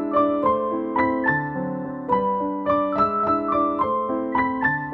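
Background piano music: a steady, flowing run of single notes at an even pace.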